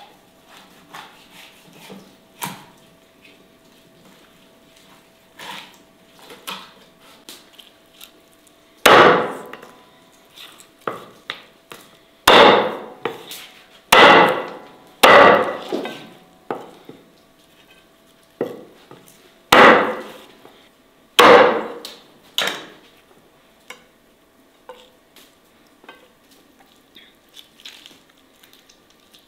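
A kitchen knife cutting up roast chicken on a wooden cutting board: about seven heavy chops into the wood, most of them between about nine and twenty-three seconds in, with lighter knocks and clicks between.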